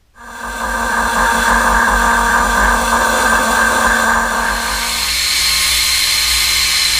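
Angle grinder cutting steel strap, a loud steady whine that starts abruptly. About five seconds in it changes to a second grinding pass with a higher pitch.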